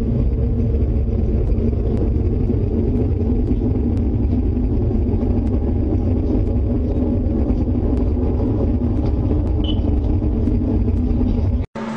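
A loud, steady low rumble with a droning hum running through it, a recording of the kind circulated as a mysterious 'strange sound'. It cuts off suddenly near the end, and a different recording begins.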